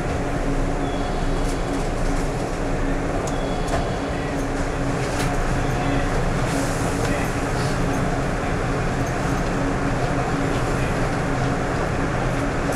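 Steady interior hum of a JR West 113-series electric train car, with a constant low tone and a few faint ticks.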